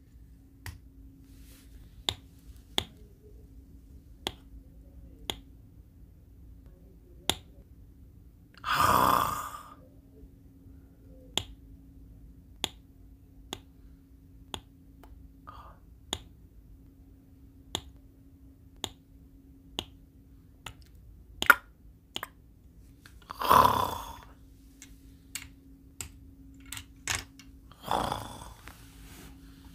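Sharp plastic clicks about a second apart as Lego pieces snap together, with three louder, noisier sounds about a second long: one about a third of the way in, one past three quarters, and one near the end. A faint steady hum lies underneath.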